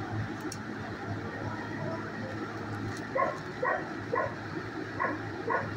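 A dog in a shelter kennel barks five times in short, sharp barks about half a second apart, starting about three seconds in, over a steady low hum.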